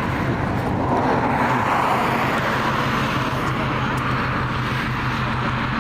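A vehicle engine hums steadily under road and street noise. A rush of noise swells about a second in and fades again by about three seconds.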